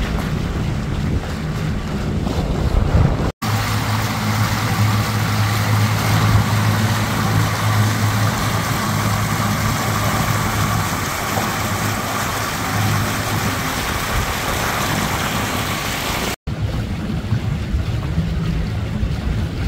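Pontoon boat underway: water rushing past and wind on the microphone. Between two abrupt cuts, the outboard motor's steady hum stands out in the middle stretch.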